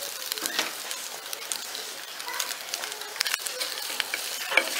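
Raw prawns sizzling in a hot pot, with a steady hiss and many small pops and crackles.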